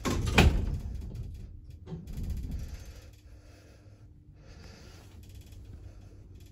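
Mid Western Lifts passenger lift setting off downward: a loud mechanical clunk within the first half second, then a rumble that fades into a low steady hum with a faint steady tone as the car travels down.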